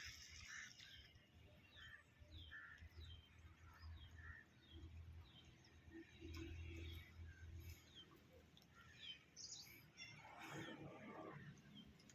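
Faint bird calls: many short downward chirps scattered through, over a low background rumble, with a brief louder rustle of noise about ten and a half seconds in.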